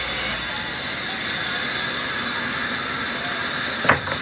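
Large vertical band saw running steadily with a high, hissing whine. Near the end comes a short squeak that sweeps down in pitch.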